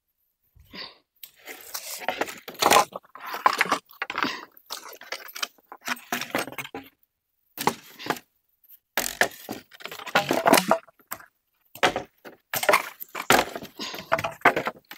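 Bamboo poles knocking, clattering and scraping against one another as they are handled and pulled from a bamboo platform frame, in irregular clusters with short gaps between them.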